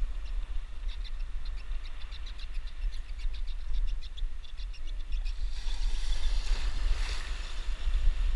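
Wind buffeting the microphone, with a quick, regular ticking of a spinning reel being cranked through the first half. Near the end a small wave breaks and washes in with a rising and falling hiss.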